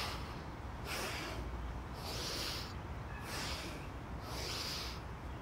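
A man's paced qigong breathing: a rush of breath about once a second, inhaling as the arms go up and exhaling as they come down.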